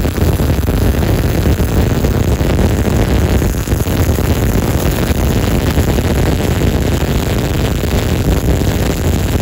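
MIG (GMAW) welding arc on structural steel, a steady dense crackle with no pitched whine.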